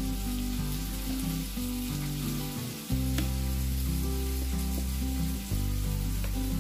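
Cherry tomatoes, onion and garlic sizzling in olive oil in a frying pan, a steady frying hiss. Background music with a bass line plays under it, pausing briefly about three seconds in.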